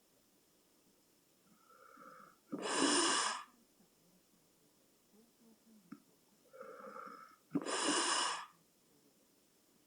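A sleeping person snoring: two breaths about five seconds apart, each a faint whistling sound followed at once by a loud, noisy snore.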